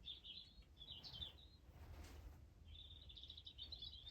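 Faint birdsong: a few short high chirps in the first second or so, then a longer run of rapid high notes from about the middle to the end.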